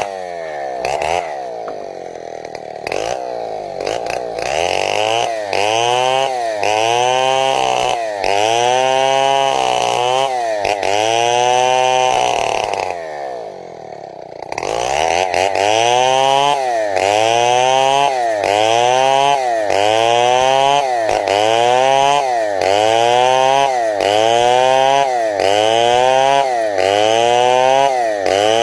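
Two-stroke chainsaw ripping a log lengthwise into boards, its engine speed swinging up and down about once a second. About halfway through it drops briefly to a lower speed, then climbs back into the same cycle.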